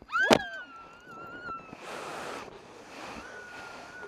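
A person screaming in free fall on a bungee rope swing, with wind rushing over the body-worn camera's microphone. A long high scream starts sharply just after the jump, a gust of wind noise comes about two seconds in, and another high held scream follows near the end.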